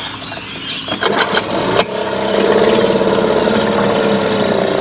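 Small Mercury outboard motor starting about two seconds in, after a few sharp knocks, and settling into a steady run.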